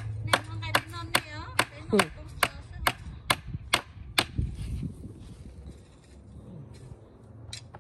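Rhythmic chopping, sharp even blows about two and a half a second, stopping about four seconds in.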